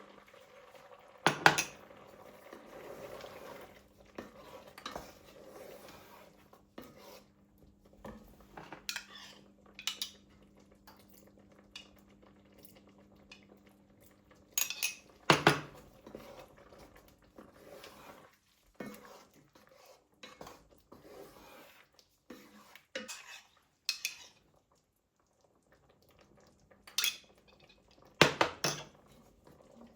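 Dishes and cutlery being handled, with scattered clinks and knocks; the loudest come about a second in, halfway, and near the end. A low steady hum runs under the first half and stops about halfway.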